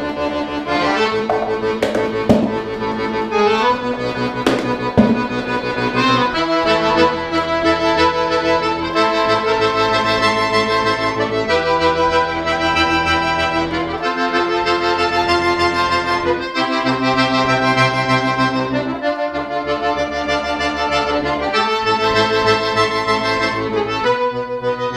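Chromatic button accordion playing sustained chords over bass notes that change every second or two, with sharp accented attacks in the first few seconds.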